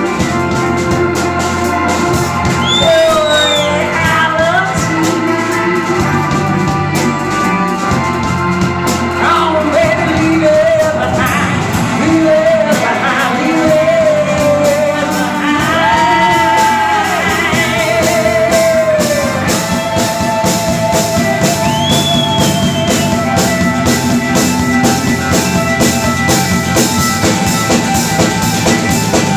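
Band playing a rock song on drums and other instruments, with a woman singing wordless ad-lib vocal runs that slide and bend in pitch over it.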